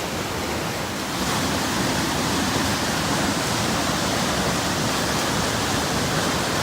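Steady rushing of Donut Falls, a waterfall close by, a continuous noise that grows slightly louder about a second in.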